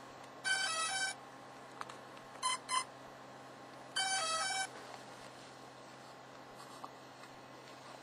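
Electronic beep tones: a short run of stepped tones about half a second in, two quick beeps a couple of seconds later, and a second stepped run about four seconds in.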